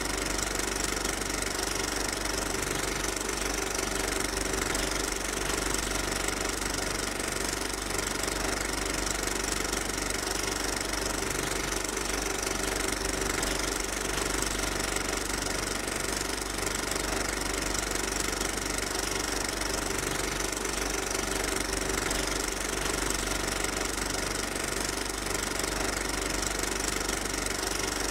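A steady, unchanging machine-like drone: a constant noisy rumble with a few held hum tones, no change in level.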